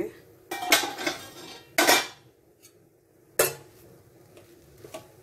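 Cookware clatter: a stainless steel pan lid being set down and a flat spatula knocking in a non-stick kadai, three sharp clanks with the middle one loudest, then softer scraping as grated papaya is stirred.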